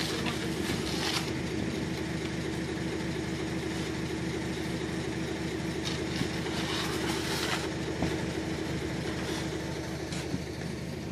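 Concrete mixer truck running steadily, its engine and turning drum making a constant drone, with a few brief rushes of noise around the middle as concrete is poured.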